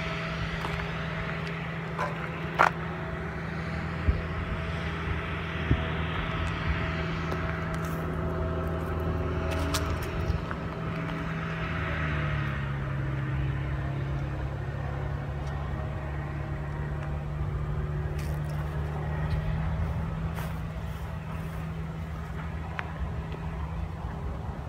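Steady motor-vehicle engine hum and traffic noise. The engine note drops to a lower pitch about halfway through, and a few sharp clicks come in the first several seconds.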